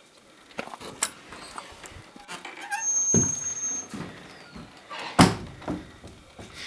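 A wooden screen door squeaking on its hinges and then banging shut with one sharp knock about five seconds in, with a few small knocks and clicks before it.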